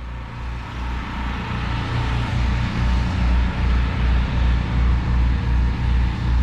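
An engine running steadily with a regular low throb, building in loudness over the first couple of seconds.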